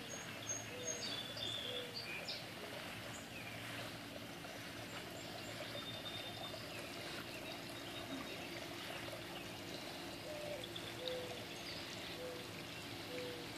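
Steady trickling of running water, with birds chirping over it.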